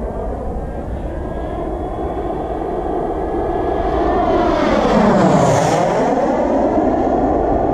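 Kingtech K80 G2 turbine of an RC model MB-339 jet making a low pass: a steady jet roar and whine that grows louder as the jet approaches. It peaks with a sweeping whoosh as it passes closest about five and a half seconds in, then eases slightly.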